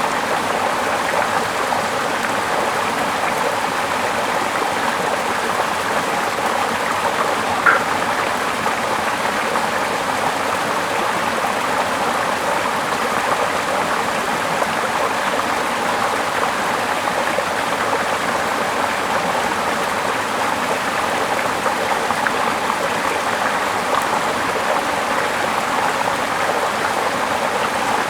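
Steady rushing of running water, like a stream, with one brief higher sound about eight seconds in.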